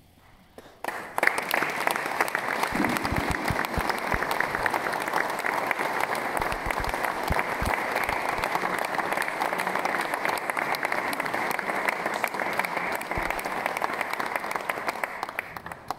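Audience applauding. The clapping starts about a second in, keeps up steadily, and thins out near the end.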